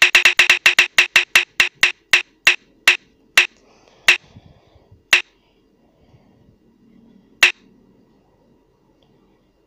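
Ticking sound effect of a phone prize-wheel app as the wheel spins down. Rapid ticks slow steadily and space out to single ticks a second or more apart, the last about seven and a half seconds in, as the wheel comes to rest.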